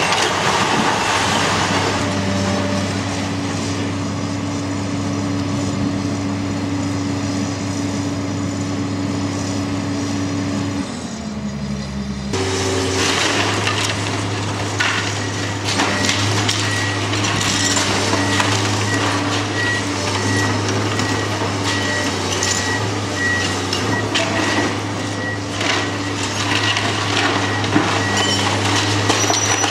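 A tracked hydraulic excavator's diesel engine runs steadily under load while it pulls down brick masonry. It comes with repeated crunching, knocking and clattering of falling bricks and rubble.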